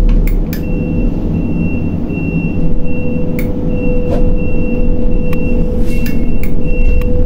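Grab crane's machinery running with a steady low rumble and hum while it slews with its empty clamshell grab hanging. A high-pitched warning beeper starts about half a second in and repeats evenly about twice a second.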